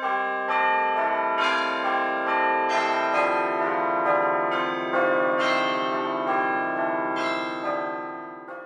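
Church bells ringing, a new strike every half second to a second over a long ringing tone, fading out near the end.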